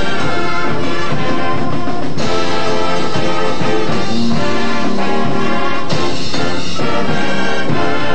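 High school marching band playing a loud full-ensemble piece of brass and drums, with held chords changing every few seconds.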